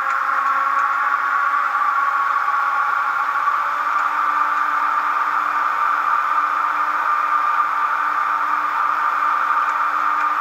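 Zimo MS450P22 sound decoder in a Roco model of the ÖBB 1670 electric locomotive, playing through its single small 15×11 mm speaker: a steady electric-locomotive running sound of several humming and whining tones over a hiss. A low hum shifts slightly about three and a half seconds in.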